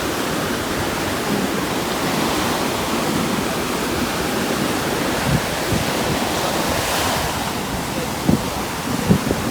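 Steady rush of ocean surf mixed with strong wind, with a few short low thumps near the end.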